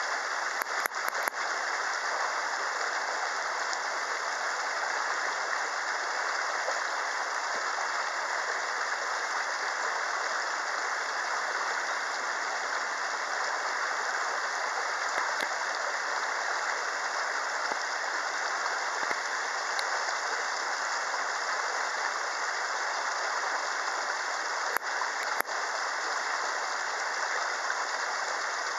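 Steady rushing noise, with a few faint clicks about a second in and two more near the end.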